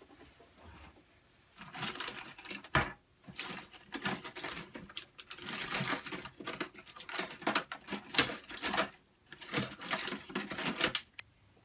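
Racket of rummaging through stored parts and hardware: a dense, uneven clatter of clicks, knocks and rattles, with a sharp knock about three seconds in and a brief pause near nine seconds.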